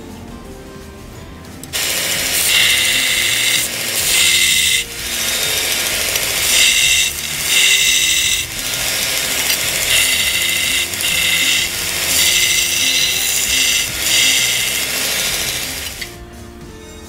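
Belt grinder grinding a steel karambit blade: a loud grinding in repeated passes of a second or two with short breaks. It starts about two seconds in and stops near the end.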